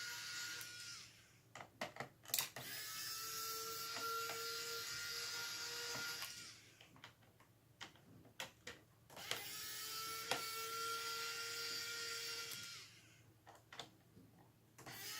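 Small electric screwdriver whirring steadily in runs of three to four seconds, backing out the screws that hold a circuit board in a plastic remote-control case, with light clicks and taps in the pauses between runs.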